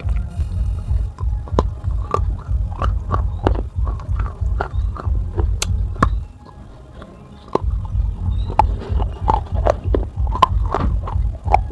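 Baked clay from a gullak (clay pot) crunched between the teeth: sharp cracks and crunches several times a second. Under it runs background music with a steady low beat, which drops out for about a second and a half around the middle.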